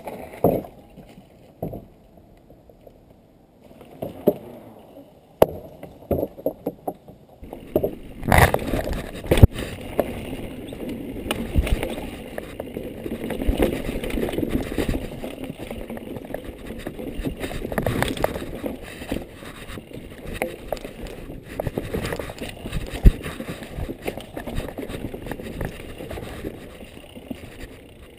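Mountain bike ridden fast down a dirt forest trail: steady tyre rumble and bike rattle with frequent sharp knocks over bumps and roots. It starts about eight seconds in, after a quieter stretch with a few scattered clicks.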